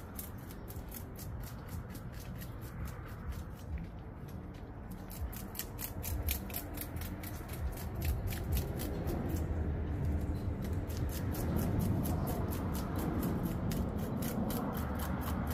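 Knife scraping scales off a fish in quick, regular strokes, about four or five a second, with a couple of brief pauses.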